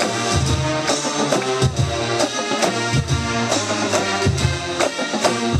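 Pep band playing: brass and woodwinds on held notes over a steady drum beat.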